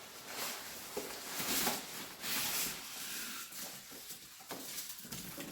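Styrofoam packing rubbing and scraping as an air dryer is worked out of its box, in irregular bursts that are loudest around the middle.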